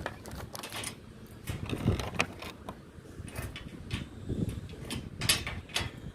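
Tools and fittings being handled during installation work: irregular clicks, scrapes and knocks, with a low rumble underneath.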